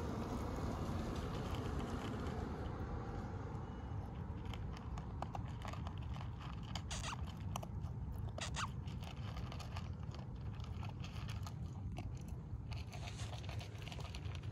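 A puppy eating dry kibble from a plastic bowl: scattered crunches and clicks of teeth on food and bowl, busiest in the middle and again near the end, over a steady low rumble.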